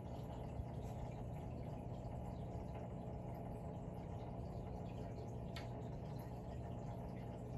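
Steady low hum of aquarium equipment running, with faint water trickling, and a single light click about five and a half seconds in.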